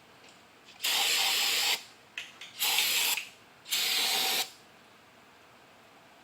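Three short bursts of pressurized spray hissing, each under a second, with a couple of small clicks before the second, as parts are sprayed during engine assembly.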